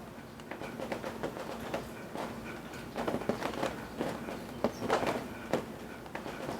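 Rain dripping from the eaves as it slowly stops: scattered, irregular drops striking over a light hiss. A cluster of louder drips comes from about three to five seconds in.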